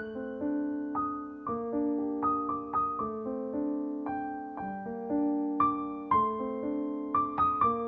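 Background piano music: a slow, gentle tune of struck notes and chords, each ringing on and fading.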